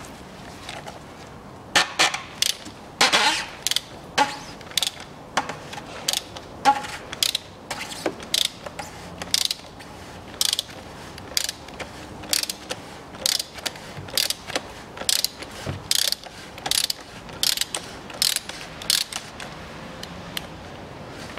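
Hand ratchet wrench clicking as it unscrews an oil filter housing cap: a long, irregular series of sharp ratchet clicks, roughly two a second, starting about two seconds in.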